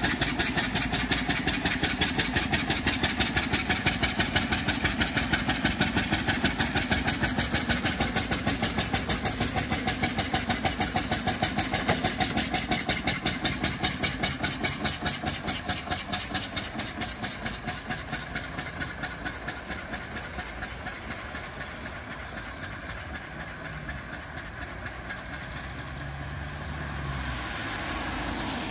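The engine of a veteran Rambler car chugging in a quick, steady beat as the car drives away, fading gradually. Near the end a modern car approaches on the wet road, and its tyre hiss rises.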